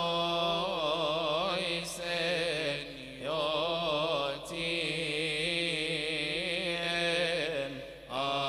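Male cantors chanting a Coptic Orthodox hymn unaccompanied, drawing long melismatic vowels with the pitch wavering around held notes. Short breath breaks come about three seconds in and again near the end.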